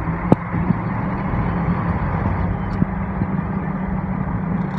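Heavy truck's engine running steadily, heard from inside the cab as a low hum with an even rumble. A few short sharp clicks or rattles stand out, the loudest about a third of a second in.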